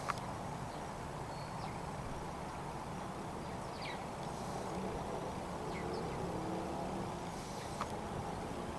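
Outdoor ambience: a steady low rumble, with a few faint, short falling chirps from birds spread over several seconds.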